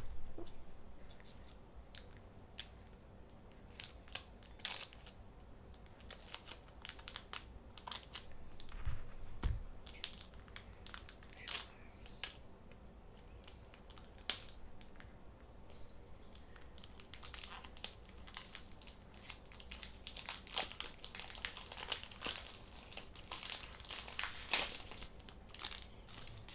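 Foil Pokémon booster-pack wrapper crinkling and tearing open, with trading cards being handled: a run of small crackles and clicks that grows busier near the end.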